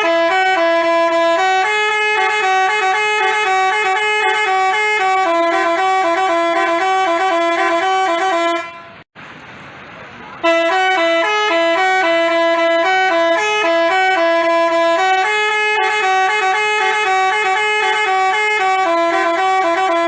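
Basuri telolet bus horn, a multi-tone horn playing a tune: chords of steady tones stepping from note to note. It breaks off for about two seconds just before halfway, then starts up again.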